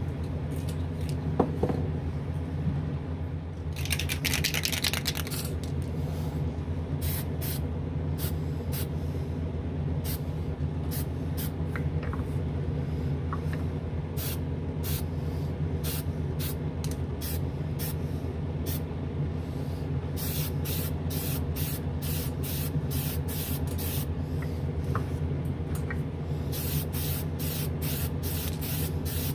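Aerosol can of Testors Extreme Lacquer spraying: one long hiss about four seconds in, then many short spray passes that come thick and fast in the last third. Underneath, the steady low hum of a spray booth's exhaust fan, and a single knock just over a second in.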